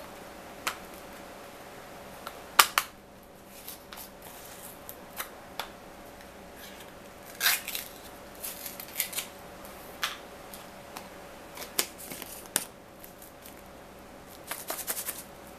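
Scattered clicks and short rattles from a spice container being opened, handled and shaken, with a quick run of rattling shakes near the end. A faint steady hum runs underneath.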